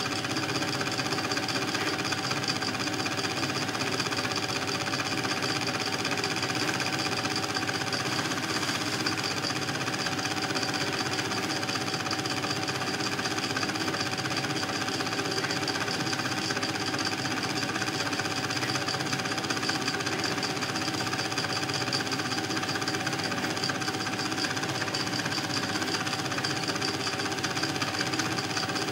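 Film projector running with a fast, even mechanical clatter and a constant whine.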